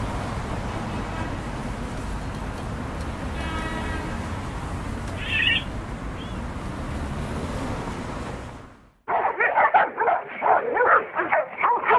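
Steady outdoor background noise with a short high cry about five seconds in. Then, after a sudden break near nine seconds, a dog barks rapidly and loudly in quick bursts.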